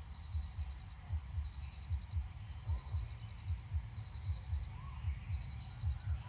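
Wind buffeting the microphone as low, irregular thumps, a few a second, over a short high chirp that repeats about once a second.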